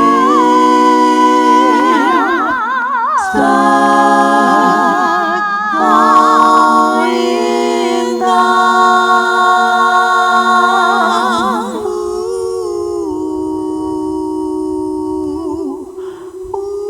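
A cappella harmony from one woman's voice multitracked into several parts, holding long wordless chords with vibrato that change every few seconds. It grows softer and thinner about twelve seconds in.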